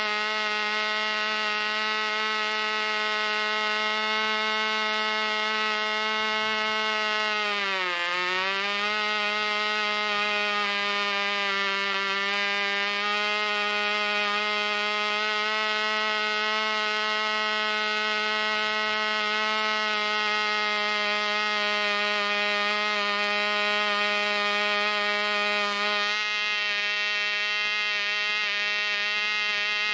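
Cox .049 Babe Bee single-cylinder two-stroke glow engine running flat out on a 6x3 prop at about 11,000 to 12,000 rpm, a loud, steady, high-pitched buzz. About eight seconds in, its speed dips sharply and picks back up. Near the end the sound turns a little less bright.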